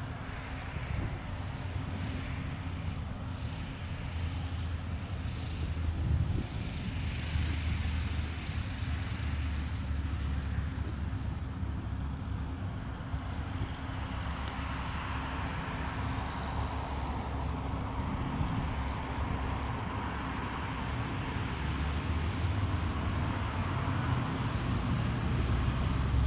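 Cessna 182N's six-cylinder piston engine and propeller running at low power as the plane touches down on grass and rolls out, then taxis, growing louder near the end.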